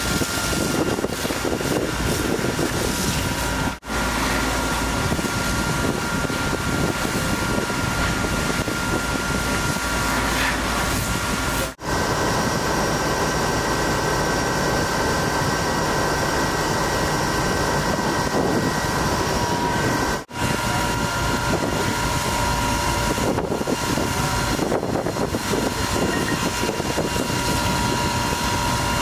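Fire engines' motors and pumps running steadily, a dense rushing noise with a few thin steady whines on top, broken three times by a brief drop-out.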